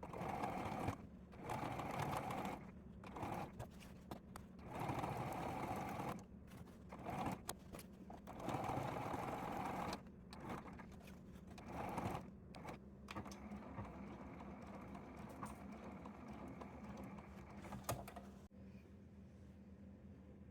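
Electric sewing machine stitching in repeated short runs of a second or two with brief stops between, then running quieter and steadier through the second half before it stops near the end.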